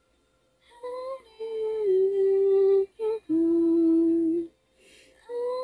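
A young woman humming in long, steady held notes that step down in pitch, with short breaks; the phrase starts over near the end.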